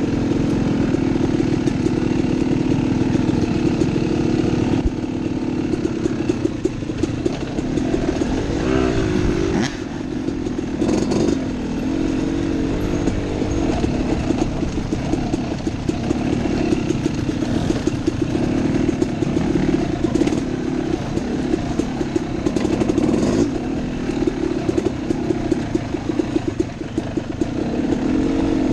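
Dirt bike engine running under changing throttle on a trail ride, revving up and easing off, with occasional knocks and rattles over rough ground.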